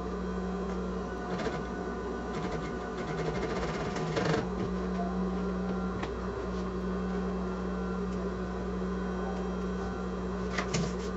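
Sewing machine running steadily, stitching the side seam of a zip pouch, with a few light clicks.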